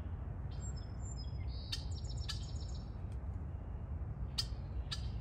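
Small birds calling: a few high, thin, steady whistles, then a quick run of short notes, with about four sharp chip notes spread through, over a steady low rumble.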